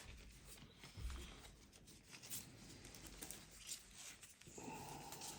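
Faint rustling and light taps of Pokémon trading cards and their pack wrappers being handled, with a soft thump about a second in.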